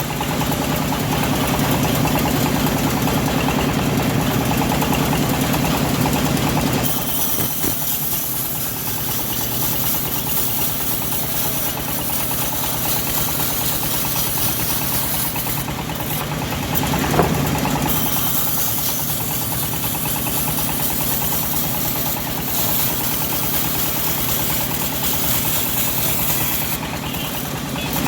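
Engine of a homemade bandsaw mill running as it saws a teak log, with a steady low hum; the note eases about seven seconds in and builds again from about two-thirds of the way through.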